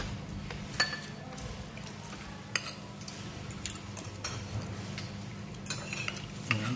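Metal spoons and forks clinking now and then against plates and bowls as people eat, over a steady low hum.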